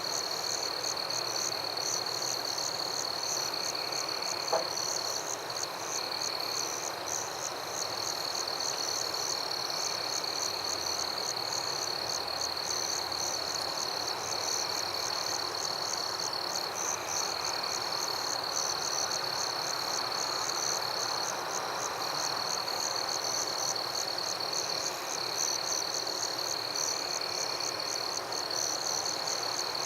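Night chorus of frogs and insects: a steady high-pitched insect trill with fast pulsing cricket chirps above it, over a dense frog chorus with softer calls repeating every few seconds. A single short click about four and a half seconds in.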